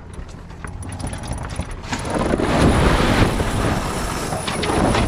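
X-99 racing sailboat tacking: sails flapping and winches clicking as the sheets are worked. The sound grows loud about two seconds in and stays loud to near the end.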